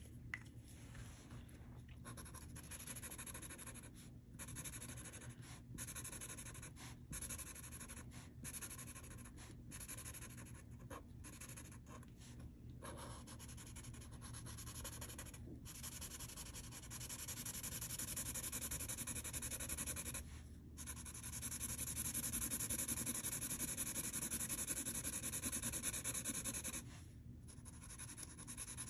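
Sharpie Fine Point felt-tip marker colouring in on paper, its tip scratching in quick repeated strokes with short breaks as it lifts. In the second half the strokes run on longer and louder without breaks.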